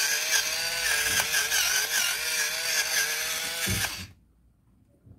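Electric pepper mill grinding black pepper: a small motor's steady whir with gritty grinding. It stops suddenly about four seconds in.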